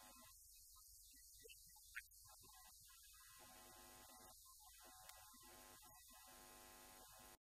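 Near silence: a faint steady low hum, with one faint click about two seconds in.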